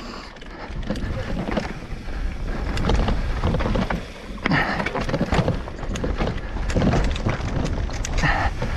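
Mountain bike being ridden down a rough trail: wind rushing over the microphone, building up about a second in as speed picks up, with many sharp knocks and rattles from the tyres and bike over rocks and roots.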